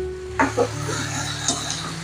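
A spatula knocking and scraping against a nonstick wok while stirring chunks of eggplant and tomato, with a couple of sharp knocks about half a second in and another about a second and a half in. Background music plays throughout.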